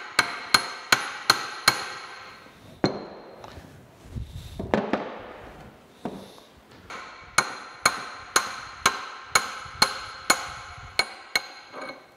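Hammer blows on a steel drift rod, driving a seized shaft out of a cast-iron gear head. They come in two steady runs of about two to three blows a second, each blow ringing briefly. Between the runs are a single blow and some scraping.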